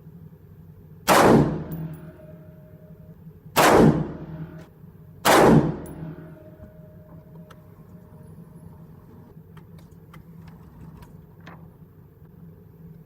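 Three 5.56 rifle shots from a Black Rain Ordnance Fallout 15 AR-15, each with a short echo. The first comes about a second in, and the other two follow about two and a half and four seconds later.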